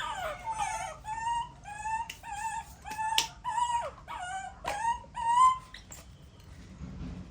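Baby monkey giving a string of about a dozen short, high-pitched cries, roughly two a second, some bending up or down in pitch; they stop after about five and a half seconds.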